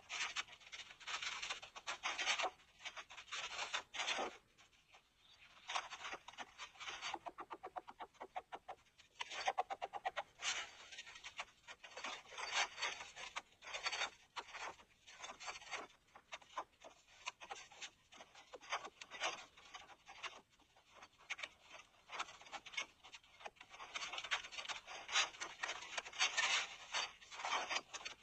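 Irregular rubbing and scraping in short bursts, with a run of quick ticks about a third of the way in.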